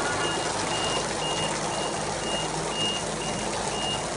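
A vehicle's reversing alarm beeping a single high tone about twice a second over a steady loud hiss.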